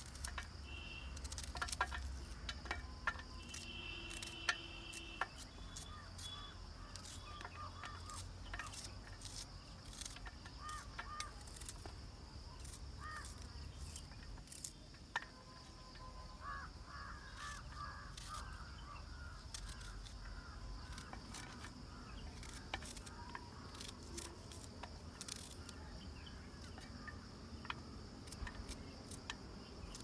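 Short irregular clicks of a small knife cutting small onions against a steel plate. Behind them runs a steady insect drone, and birds call now and then, most in the second half.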